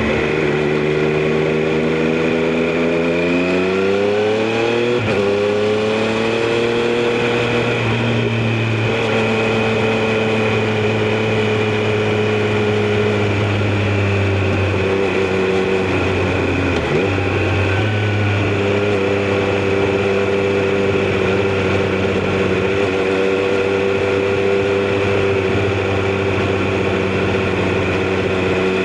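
Triumph Street Triple RS's 765 cc inline three-cylinder engine accelerating: the revs climb for a few seconds, break briefly at a quick upshift about five seconds in, and climb again. The engine then settles into a steady cruise, with a short dip in revs a little past the middle. A steady rush of wind noise runs underneath.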